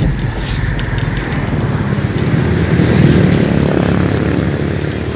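Road traffic noise: a motor vehicle passes close by, rising to its loudest about three seconds in and then fading.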